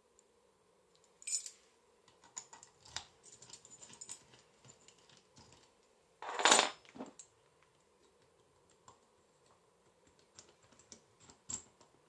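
Metal keys and brass lock cylinders being handled: scattered light metal clicks and clinks, with a clink a little over a second in and one louder knock about six and a half seconds in.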